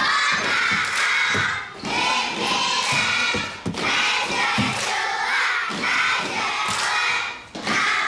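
A class of young children chanting a nursery rhyme in a Taiwanese local language in unison, loud, in phrases with short breaks between them, with thumps mixed in.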